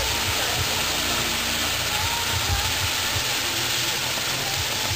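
Star-shaped ground firework set piece burning, its fountains giving a steady rushing hiss with a low rumble underneath.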